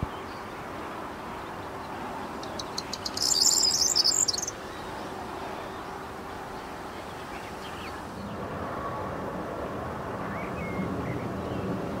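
A corn bunting sings once, briefly: a few dry ticks that speed up into a high, jangling trill, over a steady background rush.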